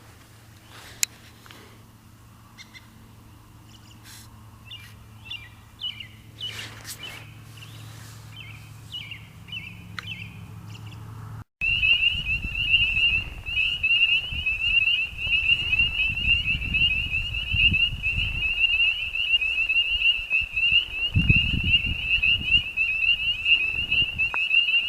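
Scattered high chirps, then, after an abrupt cut about halfway in, a loud chorus of spring peepers: many high, shrill peeps overlapping into a continuous pulsing din, over a low rumble.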